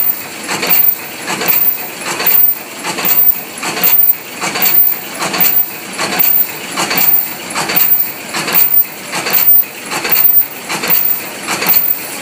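MB-12/22 paper cup forming machine running at production speed, its mechanism clattering metallically in a steady rhythm of about two beats a second.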